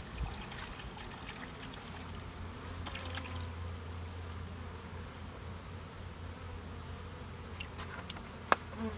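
Honeybees buzzing in a steady hum around an opened hive. A single sharp knock comes near the end.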